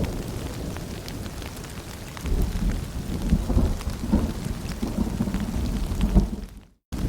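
Rain falling, with low rumbling thunder that swells about two seconds in. Near the end the sound cuts out to silence for a moment, then comes back.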